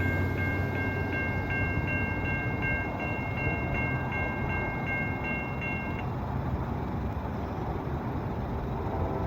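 An electronic railroad crossing bell ringing about three times a second over the steady noise of an NJ Transit commuter train passing the crossing. The bell stops about six seconds in while the train noise carries on.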